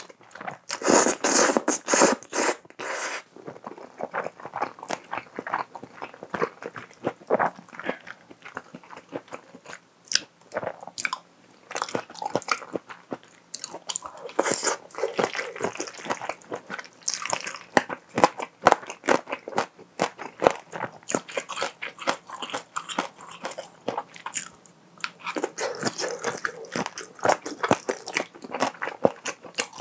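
Close-miked eating of thick noodles in a cream sauce. A long noisy slurp of noodles comes in the first few seconds, then steady chewing with many small sharp mouth clicks.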